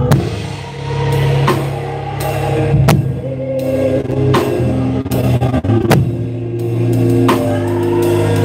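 Live praise-and-worship band playing, led by a drum kit: cymbal crashes and hits land about every second and a half over held bass and chord notes.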